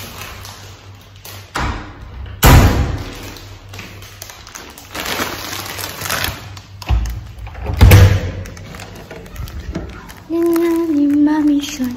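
A series of thumps and knocks, the loudest about eight seconds in, with rustling between them; near the end a held pitched sound, stepping slightly down, lasts about a second and a half.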